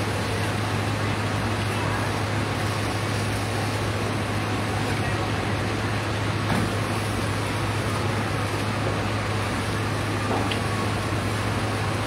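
Fire-truck pump engines running steadily: a constant low hum under a wide, even hiss.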